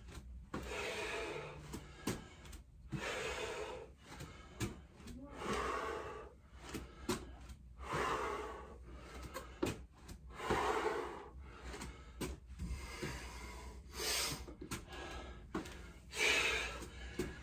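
A man breathing hard in loud gasps, about one breath every two seconds, from the exertion of a set of lunges.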